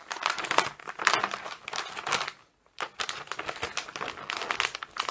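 Glossy gift wrapping paper being torn open and crumpled by hand, an irregular crinkling and tearing that pauses briefly about two and a half seconds in.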